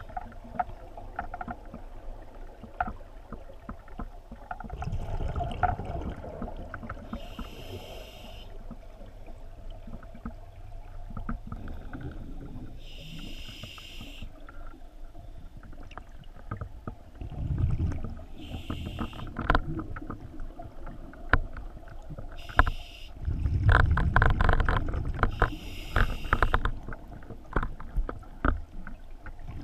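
Scuba diver breathing underwater through a regulator: a short high hiss on each inhale every few seconds, between rumbling, crackling gushes of exhaled bubbles, the loudest about three-quarters of the way through.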